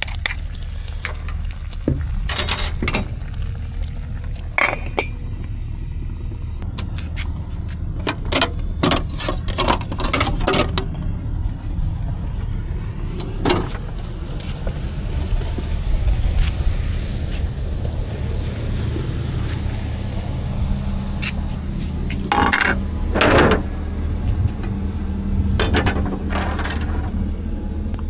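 Plastic and paper plates knocking, clinking and scraping in short, scattered knocks as they are taken out of a slide-out drawer and handled, over a steady low hum.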